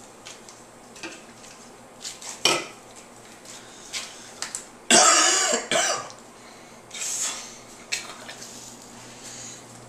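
Foil wrapper and small cardboard box of a block of Limburger cheese crinkling and clicking as it is unwrapped by hand, with a loud rustling burst about five seconds in.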